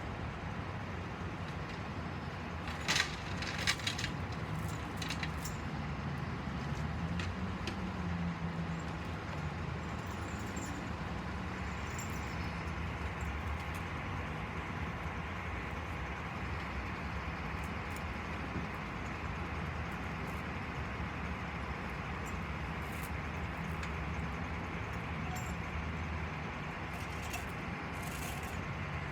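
A heavy machine's engine running steadily, its pitch rising briefly about seven seconds in, with a few sharp metallic clinks about three seconds in and again near the end.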